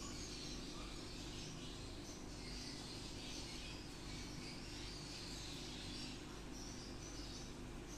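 Quiet background: a steady low hum with faint, irregular high-pitched chirping.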